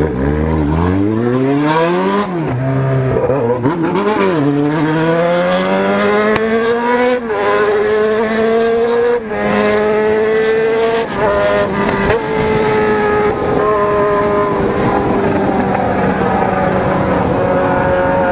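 600 cc motorcycle engine accelerating through the gears: the pitch climbs and drops back at each upshift, three or four times in the first seven seconds, then holds at steady high revs for the rest. Wind noise runs underneath.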